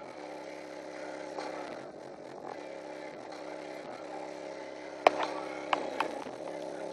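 Kole Audio KMX SPL subwoofer, driven by a Boss Audio Phantom class D amplifier, playing bass in a car. It comes through as a steady buzzing drone with its deepest notes missing, and there are a few sharp knocks about five and six seconds in.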